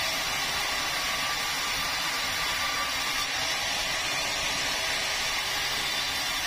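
Sawmill saw running steadily: a continuous, even hiss-like whir that holds the same level throughout.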